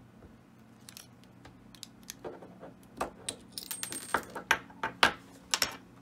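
A run of sharp metallic clicks and clinks, sparse at first and busier from about two seconds in, as a clip remover works the retaining clip off the plug of an Elzett lock cylinder and the metal parts are set down on a wooden desk.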